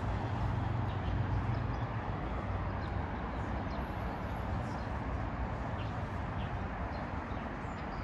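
Steady city traffic noise, with a low engine hum that fades out about two seconds in.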